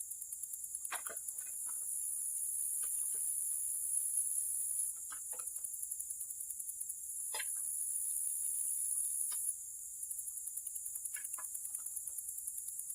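Crickets or similar insects chirping in a fast, continuous high trill, swelling louder twice. A few faint, short clicks or taps sound in between.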